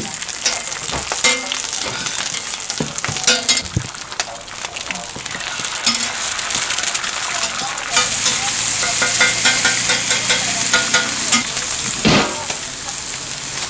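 Hamburger patties and eggs sizzling in oil on a flat-top griddle, with a metal spatula clicking and scraping against the griddle during the first few seconds. The sizzle grows louder about eight seconds in, and there is a single knock near the end.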